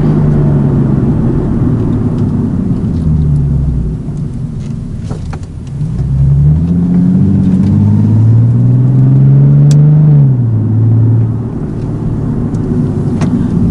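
Nissan 370Z's 3.7-litre V6 running loud through a Speed Daddy aftermarket full exhaust. It eases off about four seconds in, then climbs in pitch under acceleration for about four seconds before backing off again.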